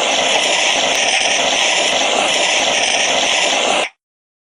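Fire extinguisher discharging: one steady, loud hiss that cuts off abruptly near the end.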